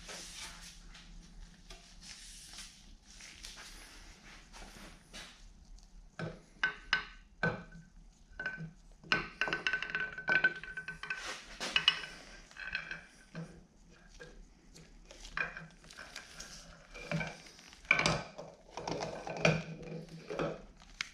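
Steel parts of a Bridgeport milling machine head clinking and knocking together as they are handled during reassembly, with short metallic rings. The clinks are irregular: sparse at first, then busier from about six seconds in.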